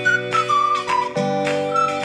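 Background music: a high whistle- or flute-like melody over a strummed or picked guitar accompaniment, with the chord changing about a second in.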